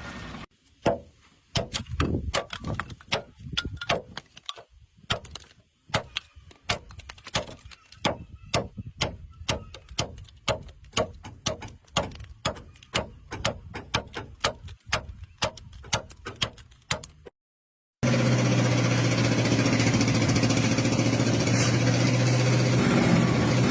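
A long series of sharp knocks or strikes, about two to three a second with slight ringing. After a sudden cut, a steady engine-driven machine runs at an even pitch.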